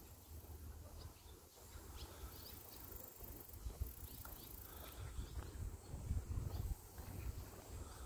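Quiet open-field ambience: wind rumbling low on the microphone, with scattered short, faint chirps of small birds.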